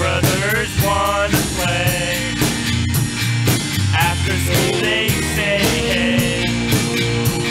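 Indie rock band playing: a drum kit keeps a steady beat under bass and guitars, with a bending melody line over them.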